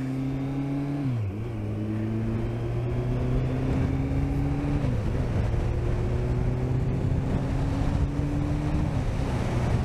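Motorcycle engine accelerating away and shifting up through the gears: its pitch climbs slowly, then drops at each upshift, about a second in, about five seconds in and near the end. Heard from a camera on the bike, with wind noise from the riding speed underneath.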